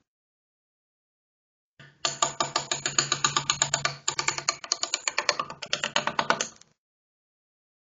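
Wooden rail being played: a rapid, even run of sharp wooden clicks, about six a second, starting about two seconds in and stopping abruptly some five seconds later.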